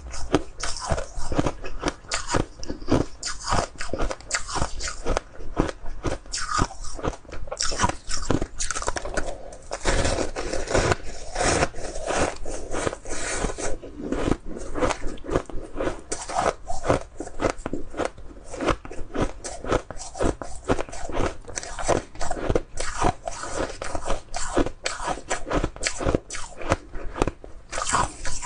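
Frozen purple flavoured ice crunching as it is bitten, chewed and broken apart by hand, close to a clip-on microphone: a dense, continuous run of crisp crunches.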